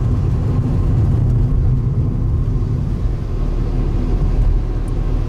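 Steady low engine and road rumble heard from inside a moving car's cabin.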